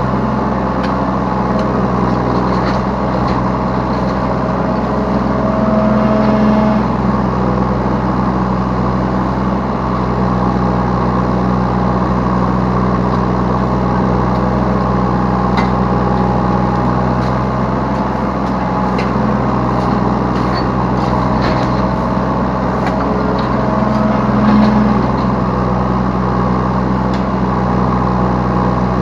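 Yanmar B3 Sigma 3-tonne mini excavator's diesel engine running steadily under working load, heard from the operator's seat. Its note shifts briefly about six seconds in and again near twenty-five seconds, and there are a few faint knocks.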